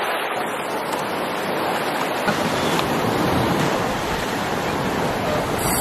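Sea waves breaking over shoreline rocks and washing up the beach, with splashing surf.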